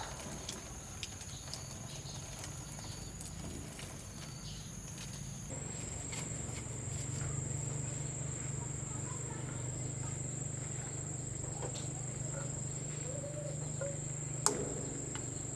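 Insects trilling steadily at a high pitch, the tone shifting about halfway through, over a steady low hum, with scattered light clicks and one sharp knock near the end.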